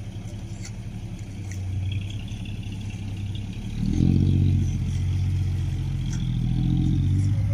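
Heavy diesel engines running at work: a loaded six-wheel dump truck moving slowly through soft dirt and a tractor with a front blade. The low engine hum swells and grows louder about four seconds in, then holds steady.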